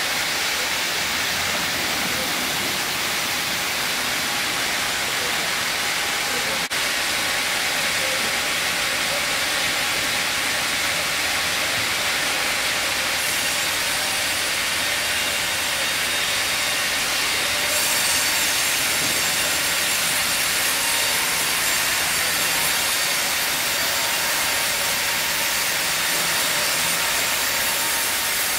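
Steady running noise of a sawmill production line, band saws and roller conveyors together, a continuous hiss with a faint low hum beneath. One brief sharp click about seven seconds in.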